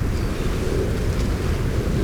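Strong wind buffeting the microphone: a steady low rumble under a rushing hiss.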